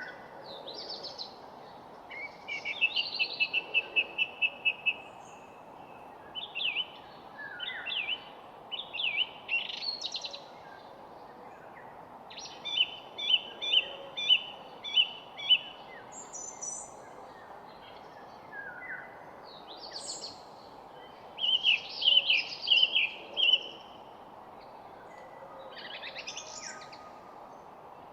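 Songbirds singing in varied phrases of chirps and fast trills of repeated notes, the loudest runs coming three times, over a steady low background hiss.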